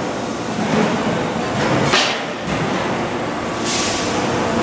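Steady industrial machinery noise from hydraulic presses forming stainless steel kitchen sinks. Two short hisses stand out, about two seconds in and again near the end.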